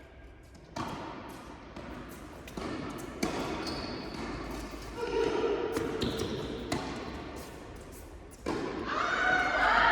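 Tennis balls struck by rackets and bouncing on an indoor court during a rally: sharp knocks about every one to two seconds.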